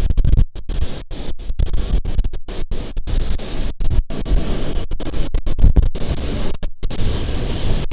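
Moving tram's running noise, a steady rumble mixed with wind on the microphone, broken by many brief dropouts.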